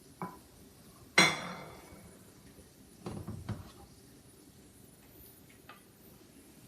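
Kitchenware clattering as food is served from a hot pot onto a dish. A loud, ringing clank comes about a second in, then a short run of scraping and clinks around three seconds in, with a few light ticks after.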